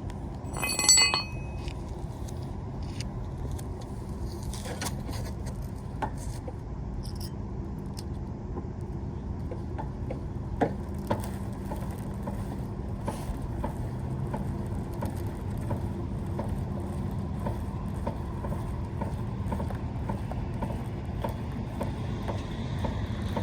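Scissor jack being cranked up by its handle to lift a car: a sharp metallic squeal about a second in, then repeated faint metal clicks and scrapes over a steady low rumble.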